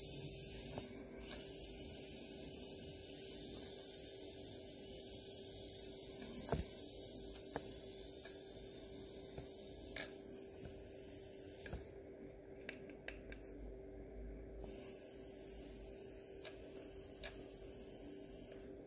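Faint steady hiss with a steady low hum underneath and a scattered handful of light clicks; the hiss drops out for a couple of seconds about twelve seconds in.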